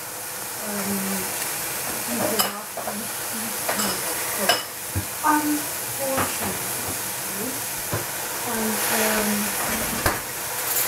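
A pot of Chinese cabbage and fried tofu sizzling and hissing steadily as it heats, with a few sharp clicks scattered through.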